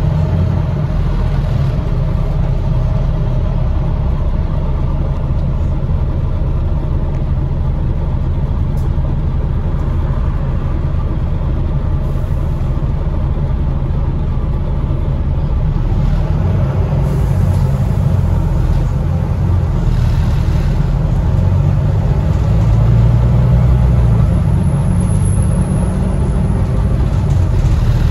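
Volvo B9TL double-decker bus's six-cylinder diesel engine running, heard from inside the lower deck as a steady low rumble with road noise. The engine note rises and grows a little louder about three-quarters of the way through.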